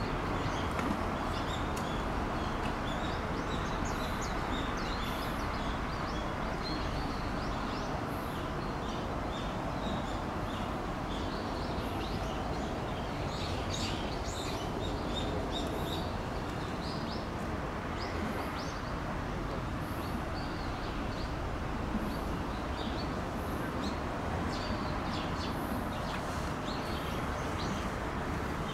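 Steady outdoor background noise with small birds chirping on and off.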